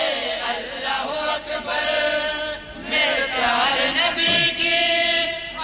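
Group of men chanting an Urdu naat together into a microphone, with sustained sung lines.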